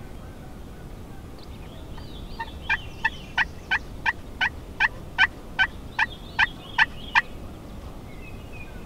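A series of about fifteen turkey yelps, evenly spaced at about three a second and fairly loud, with a few faint notes leading in.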